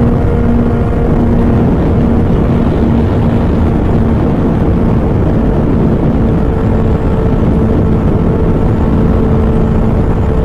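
Loud, steady vehicle rumble with a constant low engine hum.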